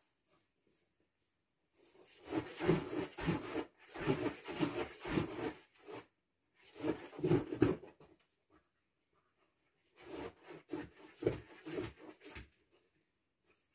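Rubbing and rustling in three spells of quick scratchy strokes, with silence between them.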